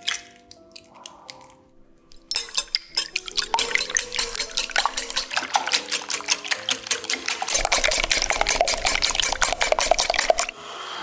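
Wire whisk beating raw eggs in a glass bowl: fast, even clicking and sloshing as the wires strike the glass and churn the liquid. It starts about two seconds in and stops shortly before the end. Soft background music plays underneath.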